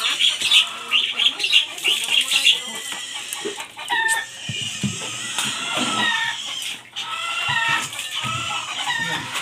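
Chickens clucking on and off, with a few dull knocks of a large knife chopping into a blue marlin's head.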